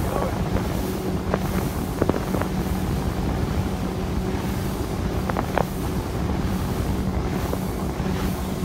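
Motorboat under way, its engine running with a steady drone, wind buffeting the microphone over the sound of water along the hull. A few brief clicks about two and five seconds in.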